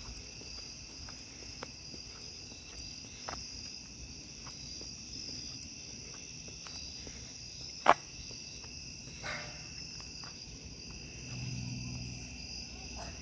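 Steady chorus of night insects trilling at two high pitches. Faint scattered ticks, one sharp loud click about eight seconds in, and a low hum near the end.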